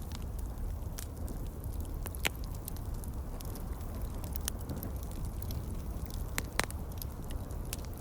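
Campfire crackling: irregular sharp snaps and pops, two of them louder, about two seconds in and again near the end, over a steady low rumble.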